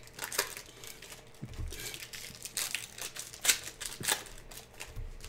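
Foil trading-card pack wrappers crinkling and rustling in irregular bursts, with a couple of soft low thumps.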